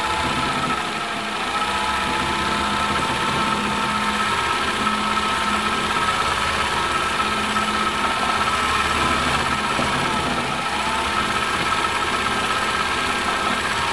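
1972 Elna Supermatic SU 62C sewing machine running steadily at speed while darning freehand. Its motor whine dips slightly in pitch and recovers a few times.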